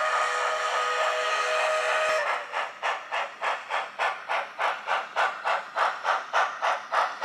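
Model steam locomotive sound: a chime steam whistle held for about two seconds, then steady exhaust chuffing at about three beats a second as the engine runs.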